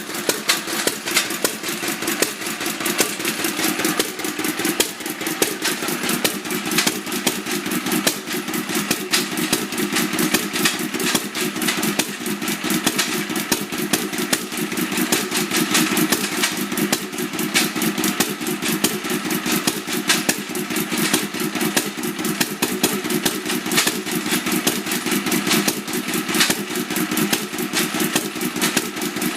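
Katsura stationary oil engine (a Japanese kerosene farm engine) running steadily with a fast, even knocking clatter. The engine is making an abnormal noise.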